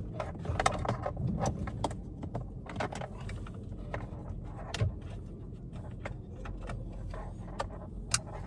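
Plastic wiring-harness connectors and loom rattling and clicking irregularly as hands work a connector into a vehicle module behind the dash by feel.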